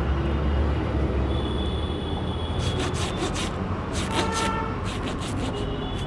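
Brush scrubbing a motorcycle air filter in short groups of scratchy strokes, starting about two and a half seconds in. A low rumble fades out in the first two seconds.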